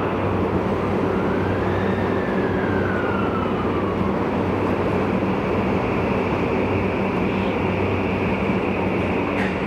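Running noise of a Tokyu 5000 series electric train in a subway tunnel, heard inside the passenger car: a steady rumble of wheels on rail. A whine rises and then falls away during the first few seconds, and there is a short click near the end.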